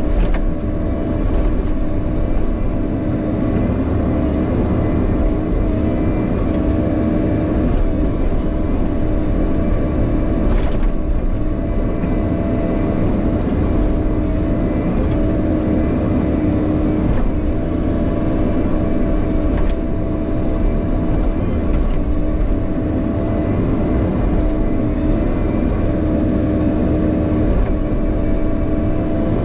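Bobcat E50 compact excavator's diesel engine running steadily under digging load, with a few sharp knocks scattered through it.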